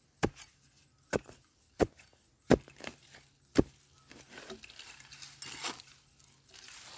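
A hand digging spade, an iron blade on a wooden handle, chopping into dry, stony soil five times, about a second apart, while digging out a wild yam tuber. Near the end the strikes give way to softer scraping and rustling of loose earth being cleared away.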